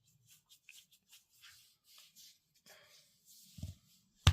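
Faint, rhythmic rubbing strokes on a dog's fur, about two to three a second, with a short low thump near the end.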